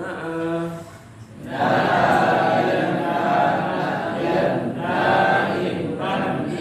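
A group of students chanting in unison, reciting Arabic morphology (tasrif) conjugation patterns from memory, in phrases of a few seconds with short pauses between them.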